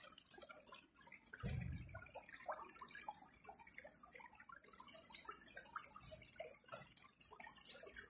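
Shallow stream trickling and splashing over stones, a dense patter of small drips and gurgles, with a brief low thump about one and a half seconds in.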